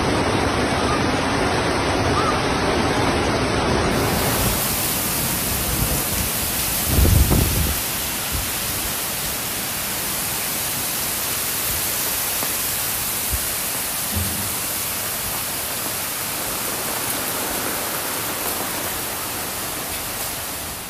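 Floodwater rushing steadily, a continuous noisy rush, with a brief low thump about seven seconds in. The sound changes character about four seconds in.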